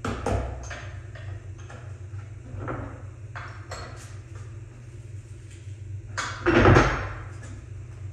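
Hand-handling noises at a slotted drum sander's drum while sandpaper is being fitted and tightened: scattered clicks and scrapes of a metal tool and the paper on the drum, with one louder rustle-and-knock about six and a half seconds in. A steady low hum runs underneath.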